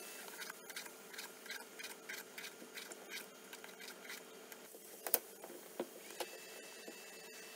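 A vegetable peeler scraping the skin off a bottle gourd in quick repeated strokes, about two to three a second, then a kitchen knife cutting through the gourd with a sharper click about five seconds in and a few lighter cuts after it.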